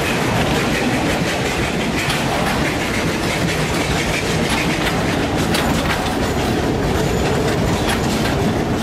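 Coaches of a 760 mm narrow-gauge steam train running along the track, heard close up from a carriage window: a steady rumble of wheels on rail with irregular clicks over rail joints.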